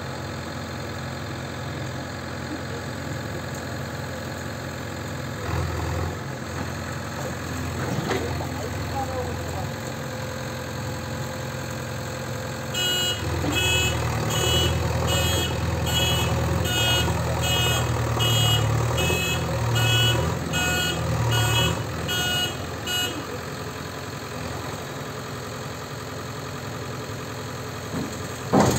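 JCB 3DX backhoe loader's diesel engine running, growing louder under load while its reversing alarm beeps steadily for about ten seconds in the middle. Near the end comes a sudden loud knock as the loader bucket hits the ground.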